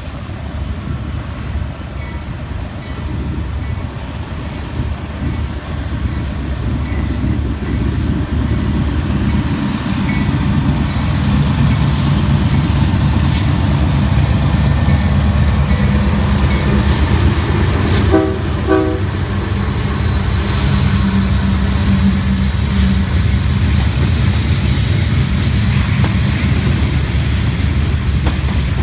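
Union Pacific diesel locomotives hauling an oil tank train approach and pass, their engine drone growing louder, and the tank cars follow, rumbling and clattering on the rails. About two-thirds of the way through come two brief horn toots.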